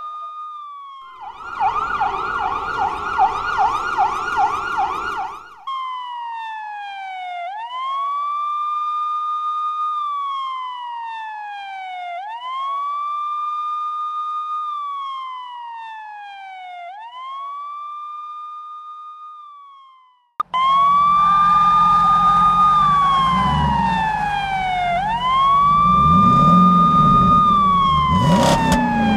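Electronic police siren: a fast yelp for a few seconds, then a slow wail rising and falling about every five seconds. It cuts out briefly about two-thirds of the way through and comes back louder, with vehicle engine and road noise underneath.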